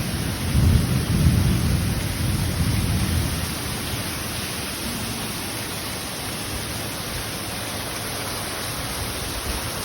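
Thunder rumbling over steady rain. The rumble is loudest in the first three seconds or so and then dies away, leaving the rain hiss.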